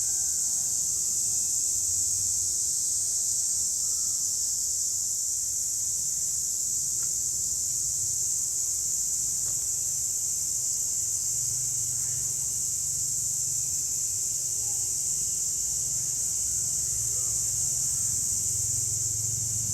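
A group of cicadas calling together in a continuous, steady high-pitched drone.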